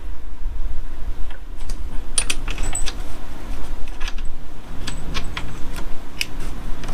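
Irregular small metal clicks and clinks of tools and parts being handled during a clutch cable job, over a steady low rumble.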